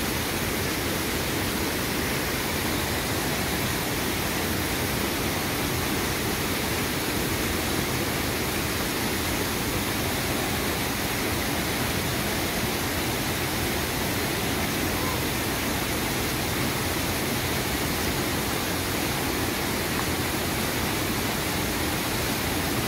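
Steady rush of a rocky mountain stream, whitewater cascading over boulders.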